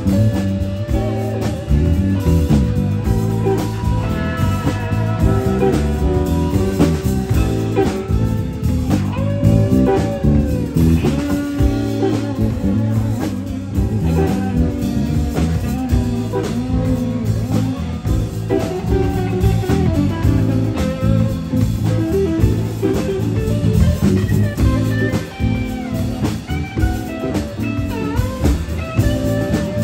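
Live rock band with an electric guitar soloing over bass and drum kit; the lead line is full of bent, sliding notes.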